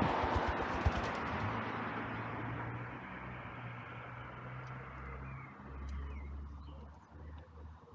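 Passing road traffic that fades away over the first few seconds, leaving a low, steady engine hum. A quick run of sharp clicks sounds in the first second and a half.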